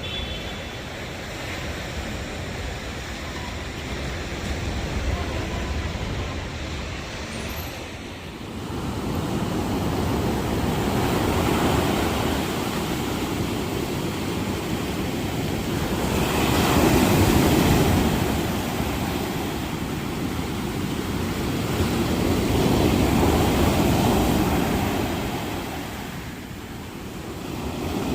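Ocean surf: waves breaking and washing up the beach, swelling and easing in slow surges about every five or six seconds.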